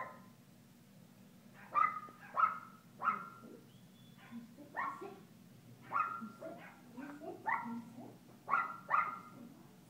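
Small dogs barking: about a dozen short, high, sharp barks, irregularly spaced, starting a couple of seconds in.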